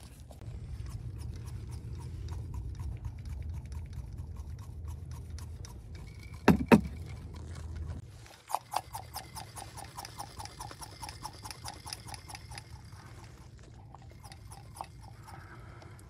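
Hand-squeezed vacuum brake bleeder pump worked rapidly, an even run of pumping strokes about five a second, drawing brake fluid out of a front brake caliper's bleeder. Before it come a steady low hum and two sharp knocks.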